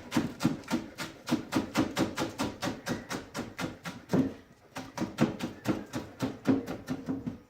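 A knife chopping green onions on a cutting board: a rapid, even run of knocks, about five or six a second, with a short pause a little past halfway.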